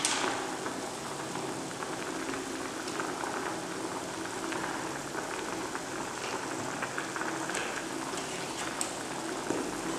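Spiced rasam broth boiling hard in a pot on the stove: a steady fizz and patter of bursting bubbles.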